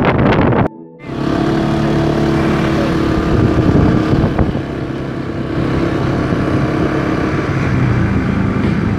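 Motor scooter engine running steadily at riding speed. The sound cuts out briefly just before a second in, then a steady engine drone holds.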